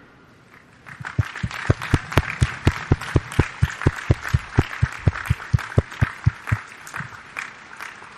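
Audience applause starting about a second in. One loud, close pair of hands claps at a steady beat of about four a second over the general clapping, stops about six and a half seconds in, and the rest thins out near the end.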